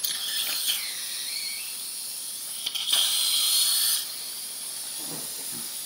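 Dental surgical suction tip hissing as it draws air and fluid from the patient's mouth, with a louder stretch of about a second just before the midpoint of the clip, then settling back to a steady hiss.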